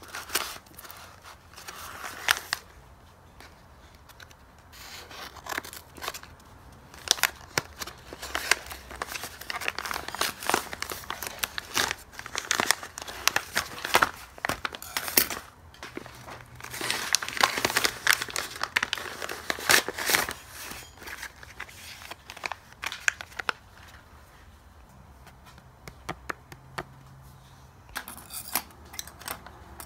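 Scissors snipping into a paper bag, then the paper crinkling, rustling and tearing as it is handled and pulled open, with a quieter stretch near the end.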